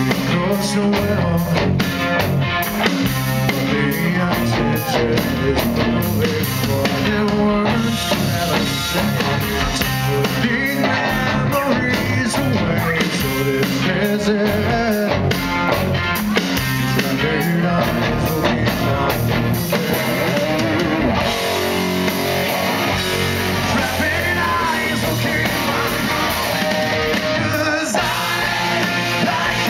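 Live rock band playing loudly, recorded from the audience: a male lead voice singing over electric guitars and a drum kit.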